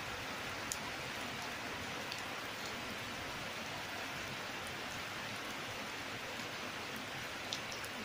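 Steady rain falling on wet pavement and plant leaves, a constant hiss with an occasional single drop tapping closer by.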